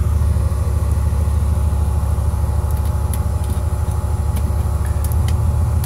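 Vehicle engine idling with a steady low hum, with a few faint clicks over it.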